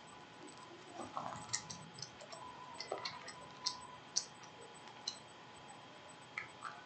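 Irregular light clicks and taps, about a dozen in a cluster and a few more near the end, as small objects are handled close to the microphone. A faint steady hum sits underneath.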